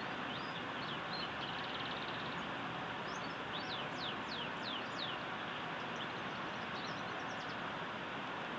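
Canary singing faintly over a loud, steady hiss: a quick trill about a second in, a run of about six downward-sweeping whistles around the middle, then scattered short chirps. A young canary still learning its song.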